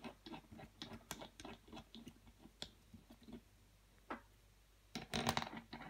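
Light, irregular clicks and taps of metal fittings and parts being handled and shifted on a wooden workbench, many in the first few seconds, then a lone click and a short flurry near the end.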